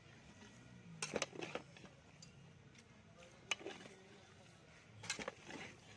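Metal ladle clinking and scraping against a large metal pot while fish pieces in thick masala are stirred. The clicks come in three short bursts: about a second in, midway, and near the end.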